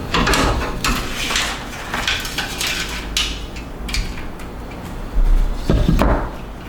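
Clicks, knocks and clatter of hands working inside a PC case to free a front case fan and its cable, with a heavier low thump about five seconds in.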